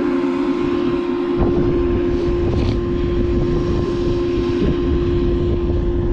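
Farm machine's engine running with a steady high whine. A low rumble comes in about a second and a half in.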